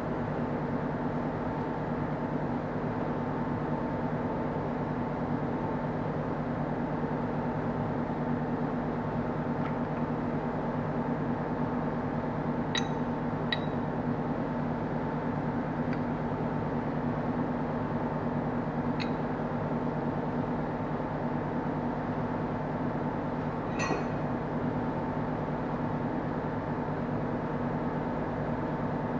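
Steady droning workshop hum, with a few light metallic clinks, twice in quick succession about halfway through and twice more later, as tools and engine parts are handled during the teardown of the valve gear.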